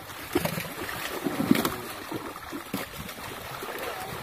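Water splashing and sloshing as fish thrash in a net pulled tight around them and men scoop them out by hand, with irregular splashes, the loudest about a second and a half in.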